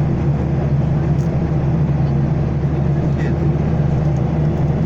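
Steady drone of a Boeing 737-800's CFM56-7B engines and airflow heard inside the passenger cabin: an unchanging low hum over a broad rushing noise.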